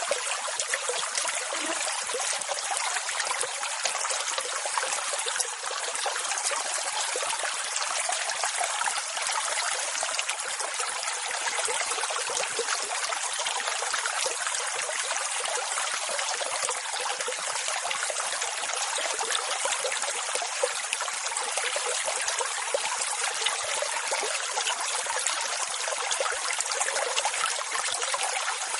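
Ocean waves, a steady rushing wash of water with little bass and no distinct breaks.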